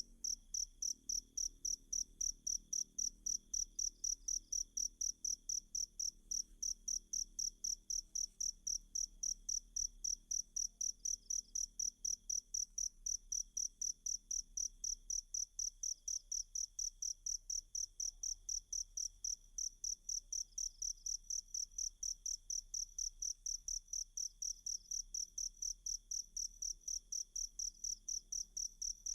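Cricket chirping in a fast, steady, even rhythm of high-pitched pulses, with a fainter continuous trill beneath it.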